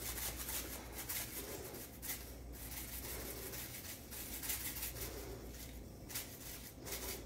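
Coarse steak seasoning being shaken from a bottle onto a raw beef chuck roast: a string of short, gritty shakes at irregular intervals, over a steady low hum.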